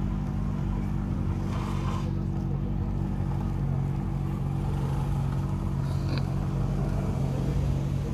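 Steady low engine hum, like a vehicle idling nearby, with faint street noise.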